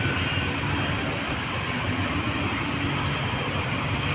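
Steady low mechanical rumble with a faint hum, even throughout.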